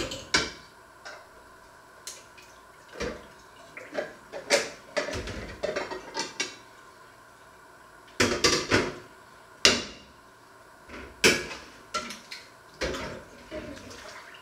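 Dishes being washed by hand: ceramic plates and metal pots clinking and clattering at irregular intervals, with water sloshing in the sink in between. The sharpest clatters come a little past the middle.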